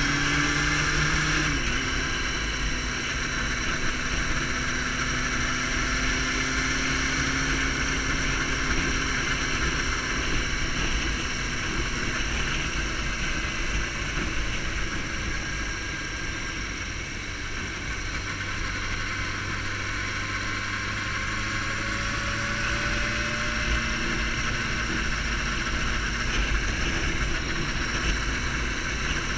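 Sport motorcycle engine running at road speed, with steady wind rush on the microphone. The engine's pitch drops sharply about a second and a half in, then later climbs slowly.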